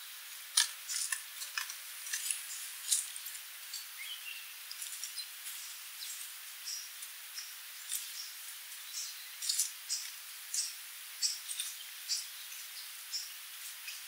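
Sooty babbler calling: an irregular scatter of short, sharp, high chips and ticks, with a brief rising whistle about four seconds in, over a steady hiss.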